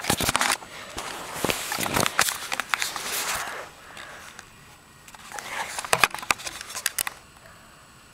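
Rustling and clicking handling noise from a handheld camera being moved quickly, with a string of sharp knocks and taps. The noise is busiest in the first half and again about six seconds in, then dies down.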